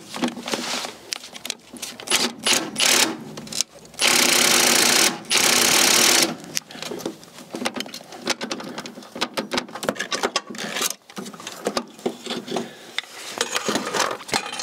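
Socket ratchet working an engine mount bolt: rapid ratchet clicking and metal-on-metal tool knocks, with two loud sustained rattling stretches of about a second each, around four and five and a half seconds in.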